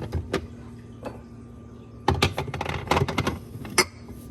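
Quick clicks and knocks of grocery containers being handled and set down on fridge shelves, with a dense run of them from about two seconds in and one sharp knock near the end.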